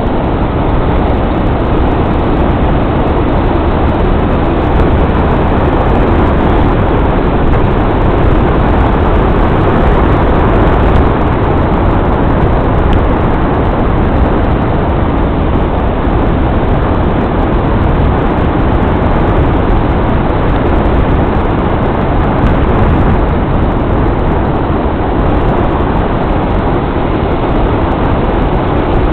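Steady noise of a vehicle on the move, a continuous rumble and rush without a break.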